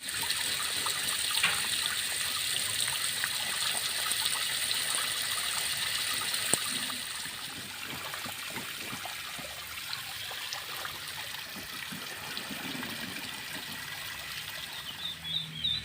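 Water trickling and splashing steadily in a pool, with small scattered splashes; it drops a little in level about seven seconds in.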